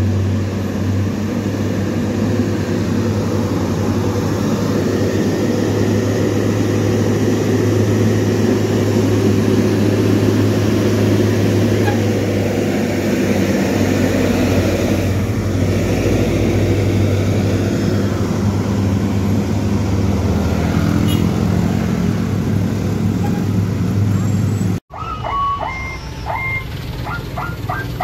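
Heavy diesel truck engine running steadily under load, a low even drone, as the Hino truck passes close by. About 25 seconds in the sound cuts off abruptly and gives way to people talking over idling traffic.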